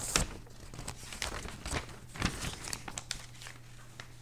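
Sheets of paper rustling and being shuffled through by hand, with scattered short clicks and knocks, over a faint steady electrical hum.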